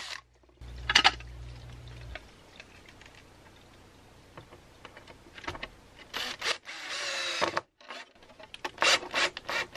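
Cordless drill running in short bursts as it drills a hole through a small plastic breaker box. It runs steadily for about a second and a half near the start, and again briefly later. Short clicks and rattles near the end.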